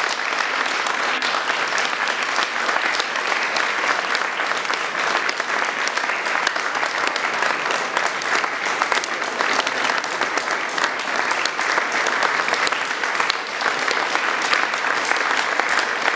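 Audience applauding: many people clapping steadily and evenly.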